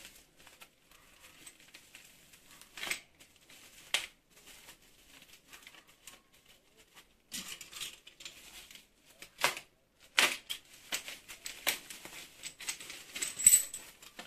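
Plastic bubble wrap crinkling and rustling as it is pulled off a bicycle dropper seatpost, in scattered crackles that come thicker and louder in the last few seconds.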